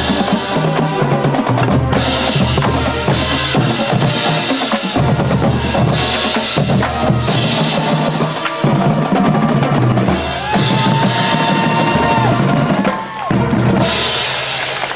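Marching band drumline playing a street cadence: bass drums, snare drums and rolls, with repeated crash-cymbal hits.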